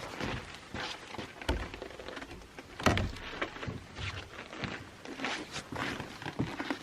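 Footsteps with scattered thuds, the loudest about a second and a half and three seconds in.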